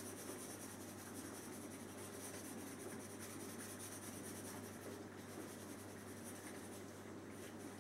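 Steady scribbling of a colouring pen on a cardboard cut-out, colouring it in red.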